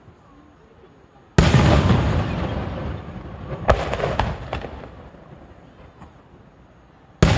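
Aerial firework shells bursting overhead: a loud boom about a second and a half in that echoes away slowly, a sharper crack with a couple of smaller pops about two seconds later, and another boom at the very end.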